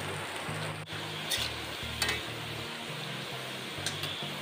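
Potato bites deep-frying in hot oil in a steel kadai, a steady sizzle, with a couple of clinks from a slotted spoon against the pan.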